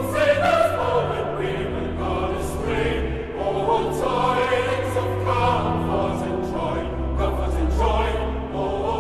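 Choir singing a Christmas carol over sustained instrumental accompaniment, the music running on without a break.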